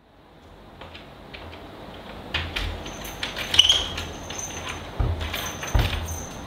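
Keys jangling and a front door lock being worked from outside: a run of irregular sharp clicks and metallic rattles, over a faint hiss that fades in at the start.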